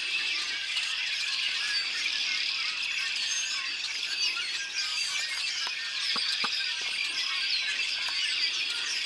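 A large flock of birds calling all at once: a dense, continuous din of overlapping chirps and squeaks, really loud.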